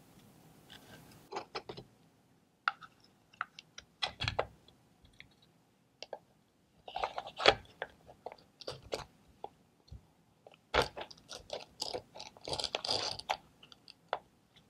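Wooden puzzle box being handled and fitted together on a stone slab: irregular clicks, knocks and scrapes of wood against wood and stone, busiest in the second half.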